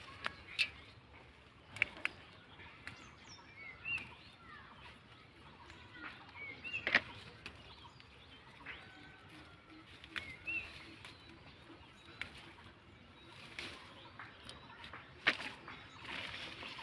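Small birds chirping in short repeated calls, with a few sharp snaps and leaf rustling as bean pods are picked by hand from the vines.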